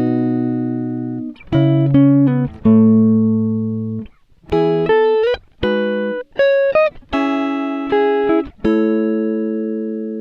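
Background music: slow plucked-string chords, each ringing out and fading, with short breaks between them.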